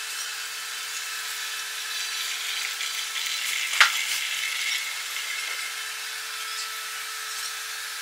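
Milk poured in a thin stream from a squeeze bottle into a stainless-steel jug: a steady hiss, with one sharp click a little under four seconds in.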